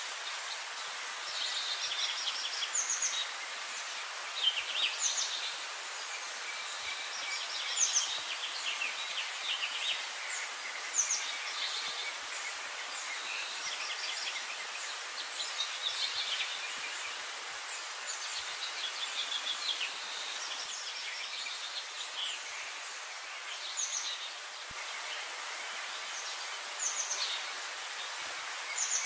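Sparrows chirping: short runs of quick, high chirps that come every second or two, over a steady background hiss.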